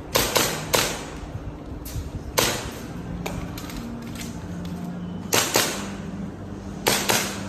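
Airsoft pistol shots fired in a string during an IPSC stage: sharp cracks, mostly in quick pairs, with pauses between the groups.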